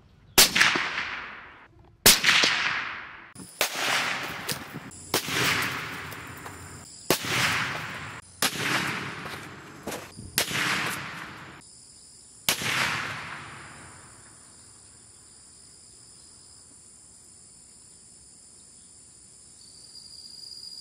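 A series of .308 Winchester rifle shots, about ten sharp cracks spread over roughly twelve seconds, each ringing out and dying away over about a second. After the last shot, insects keep up a faint, steady, high chirring.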